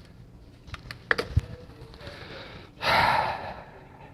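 A few light metallic clicks and taps about a second in, then a heavy, breathy sigh of frustration lasting under a second near the end.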